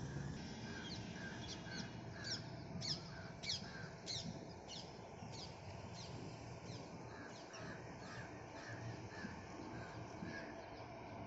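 Birds calling over and over, crows cawing among them: short calls about twice a second, with sharper high calls that sweep downward, loudest in the first half, all over a low, steady rumble.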